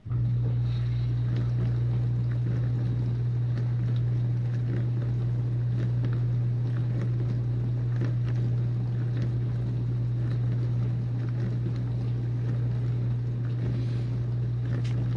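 Whirlpool dishwasher's wash pump starting suddenly and running, a steady low hum with water spraying and splashing against the dishes inside the tub.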